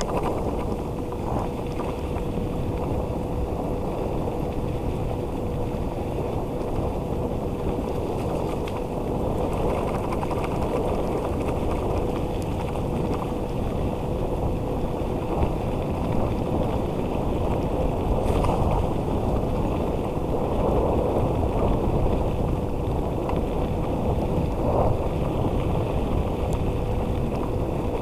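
A dog scooter's tyres rolling fast over a wet trail, with a steady rumble and wind on the microphone. A faint steady whine runs under it.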